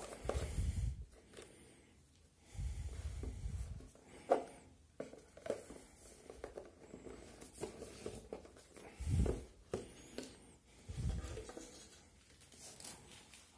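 Cardboard phone box being handled on a table: several dull bumps as the box is closed, moved and set down, with faint scraping and rubbing of the paperboard between them.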